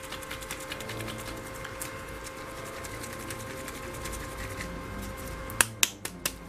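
Ammo by Mig Jimenez acrylic paint dropper bottle being shaken by hand, its mixing ball rattling in a quick run of clicks. Two sharp knocks near the end.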